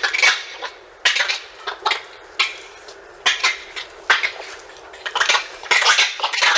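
Mexican spider monkey calls: short, harsh calls repeated irregularly, about once or twice a second.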